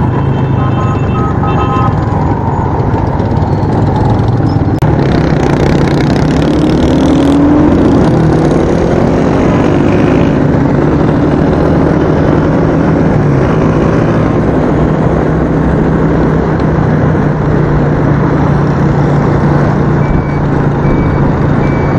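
Motorcycle engine running steadily at riding speed under heavy wind noise on a helmet-mounted microphone, with the noise of surrounding road traffic. Short repeated beeps sound near the start and again near the end.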